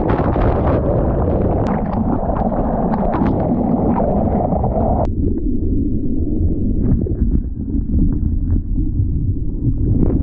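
Ocean surf and whitewash churning and splashing against a waterproof action camera at the water's surface, heard muffled through its housing, with many short sharp splashes. About halfway through the sound suddenly goes dull and low, and a brighter rush of splashing returns near the end.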